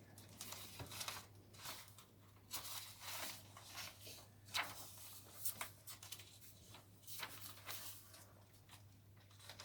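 Paper pages and cards of a handmade junk journal rustling and swishing as they are turned and handled: soft, irregular swishes every half second or so. A steady low hum runs underneath.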